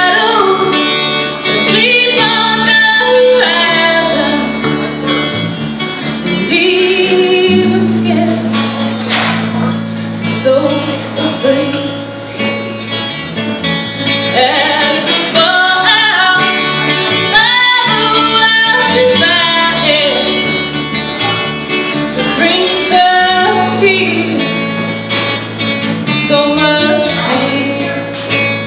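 A woman singing a slow rock ballad into a microphone, backed by an acoustic guitar and a bass guitar playing live.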